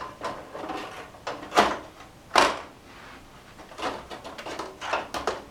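Motherboard being set into a metal computer case: a string of sharp knocks and short scrapes against the chassis, the loudest two about one and a half and two and a half seconds in.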